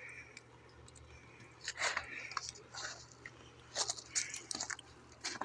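Backyard chickens clucking softly amid short bursts of scratchy, crunching pecking sounds, clustered about two seconds in and again around four seconds in.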